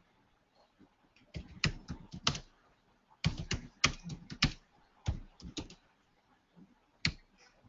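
Typing on a computer keyboard: several quick runs of keystrokes separated by short pauses, with a single keystroke near the end.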